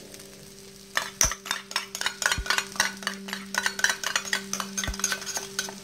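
Cooking utensils clinking and scraping rapidly against a wok in stir-frying, starting about a second in, over a steady low hum.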